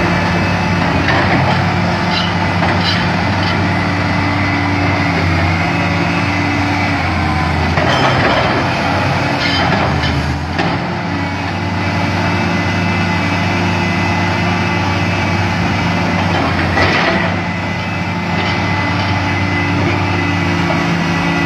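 Komatsu excavator's diesel engine running steadily under work, its note stepping up and down, with a few sharp knocks about eight, ten and seventeen seconds in.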